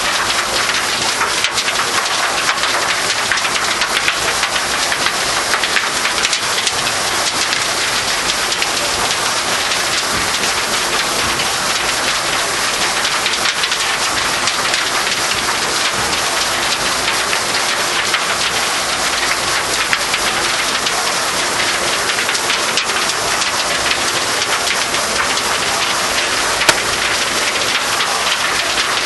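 T5 machine working soil: a loud, steady, dense patter like heavy rain.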